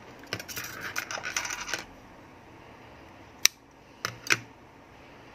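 Scissors cutting leftover yarn: a scratchy rustle of handling for about a second and a half, then a sharp metallic click about three and a half seconds in and two lighter clicks soon after.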